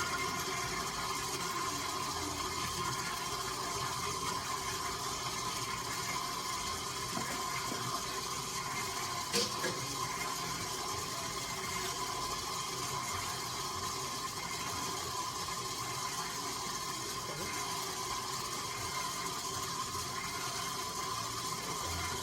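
Electric mixer running steadily, beating cookie batter as eggs are added a little at a time, with a steady motor hum and one sharp click about nine seconds in.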